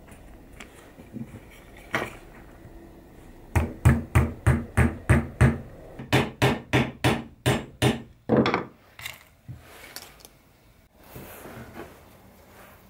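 A hammer tapping nails through wooden wheels into a toy's wooden base. There is a single blow, then two quick runs of about seven and eight blows, roughly three a second.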